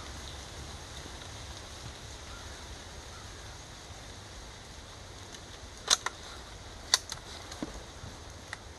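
Sharp metallic clicks from working the action of a Keystone Crickett single-shot .22 LR rifle: two louder clicks about a second apart, each followed quickly by a smaller one, then a few fainter clicks near the end. A steady low outdoor rumble runs underneath.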